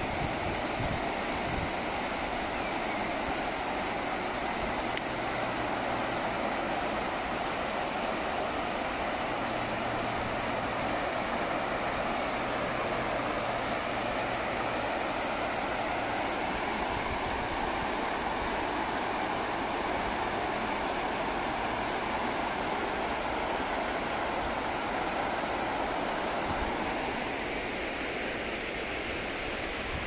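Water rushing steadily over a weir.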